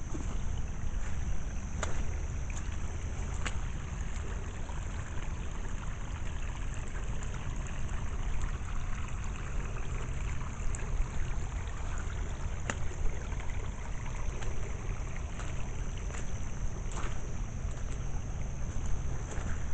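Rainwater running steadily after a downpour, with a low rumble underneath and a few sharp ticks scattered through.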